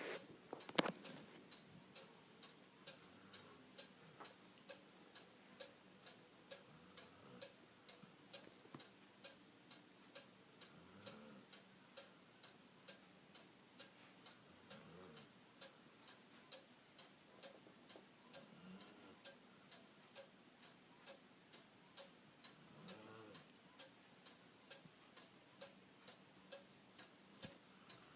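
A dog snoring softly, one slow breath every few seconds, over a steady ticking of about two ticks a second.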